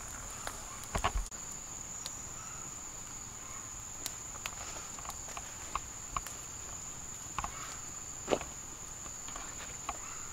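A steady, high-pitched insect drone, like a cicada or cricket, with scattered sharp clicks and snaps over it. The loudest snap comes about eight seconds in.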